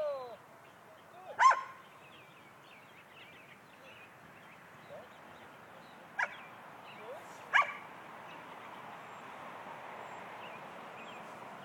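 Dog barking three times, single sharp barks several seconds apart, after a brief falling whine at the start.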